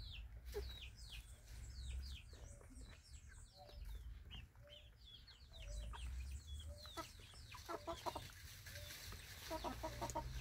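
Young chickens peeping over and over with short, high, falling chirps as they feed, with a few lower clucks near the end.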